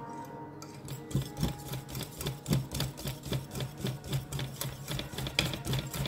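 Wire whisk beating thick chickpea-flour batter in a bowl, a quick clatter of the wires against the bowl about three to four times a second, starting about a second in. The batter has thickened and is being whisked smooth between microwave stages.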